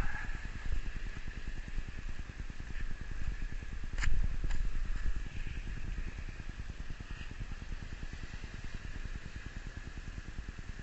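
A steady low rumbling noise with a faint high hum over it, and two sharp clicks about four seconds in, the first the louder.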